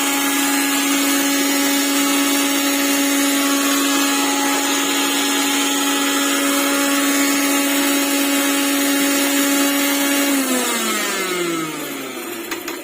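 Preethi Eco Chef mixer grinder's motor running steadily at high speed with a whine, then winding down about ten seconds in, its pitch falling as it slows.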